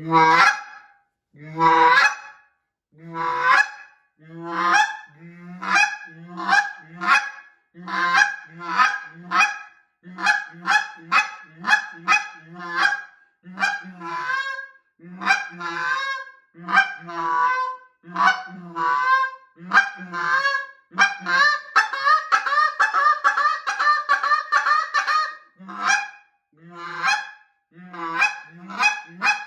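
Nor'easter Game Calls Flame Box Elderburl custom goose call blown by hand: a long run of honks, each breaking from a low note up to a high one. About two-thirds of the way through it quickens into a fast string of high clucks for a few seconds, then goes back to honks.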